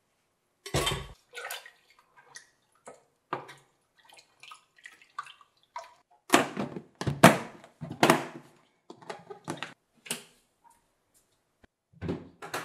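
A plastic food-storage container being handled and its plastic lid fitted and pressed shut, heard as a series of clicks and knocks. There is a heavy thud about a second in, and the loudest knocks come about six to eight seconds in as the lid goes on.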